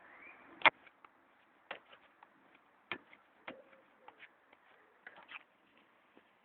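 A football being played with: a string of sharp thuds at irregular intervals, roughly one a second, the first the loudest.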